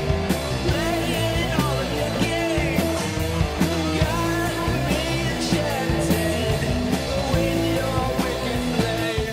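Rock song with a singing voice over a steady beat.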